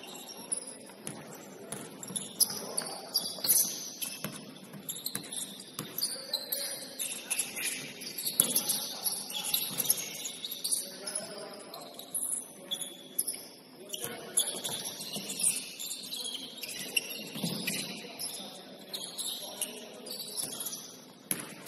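Basketball game sounds in a gym: sneakers squeaking in short high chirps on the court floor, with scattered sharp knocks of the ball bouncing and players' voices underneath.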